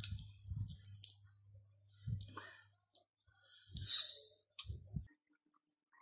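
Close-up eating sounds: steamed crab meat being picked from the shell with the fingers, with scattered clicks and wet mouth smacks as he chews and sucks his fingers. There is a louder crackle about four seconds in.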